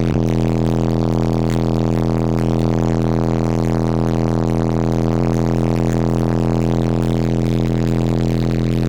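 DL Audio Raven 15 v2 car subwoofer playing a loud, steady low bass drone with unchanging pitch, briefly breaking about five seconds in.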